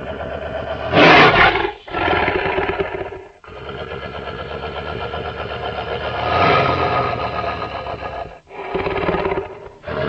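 Roars of Tyrannozilla Rex, a custom monster sound layered from lion, tiger and T-rex sounds. Four roars come one after another with short breaks: a loud harsh burst about a second in, a long roar from about three and a half to eight seconds, and a short one near the end.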